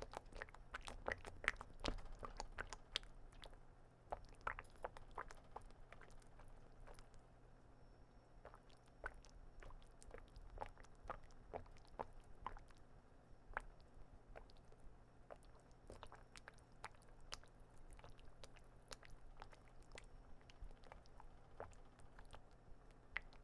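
Faint, wet squishing: a long run of irregular soft clicks and squelches, thickest in the first few seconds and sparser after.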